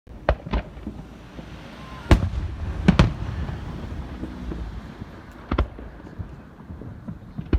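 Fireworks going off: several sharp bangs at irregular intervals, a close pair about three seconds in, with a low rumble between them.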